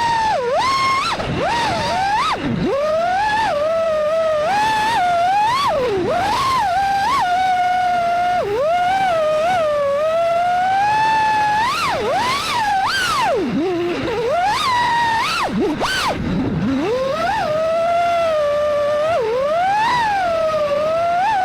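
Brushless motors of a 5-inch FPV freestyle quadcopter (MEPS SZ2207 V2) whining, the pitch swooping up and down constantly as the throttle is worked through spins. The pitch dips deep several times, near 2.5 s, 14 s and 16.5 s, where the throttle is chopped and then punched back up.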